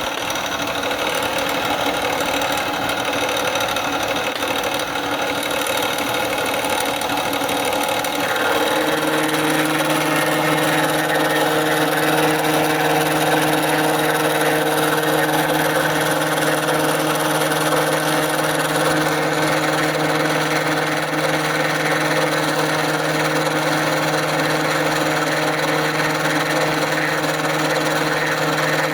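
Metalworking machine tool running steadily with a broad mechanical whirr; about eight and a half seconds in, a steady low hum with overtones comes in and holds.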